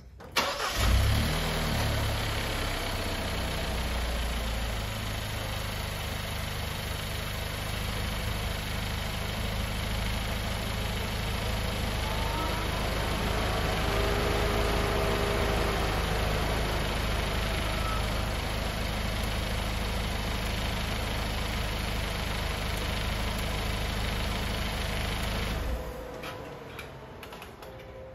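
Genesis G70's 2.0-litre turbocharged four-cylinder engine starting, with a brief flare about a second in, then idling steadily before it is switched off near the end. This is the first run after an oil change, to circulate the fresh oil.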